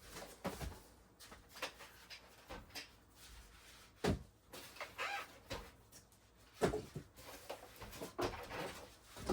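Scattered knocks and rustling as a computer is lifted out of its box and handled.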